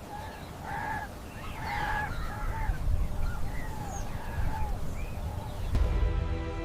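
A series of short, arched animal calls repeated about twice a second over a low rumble; music comes in near the end.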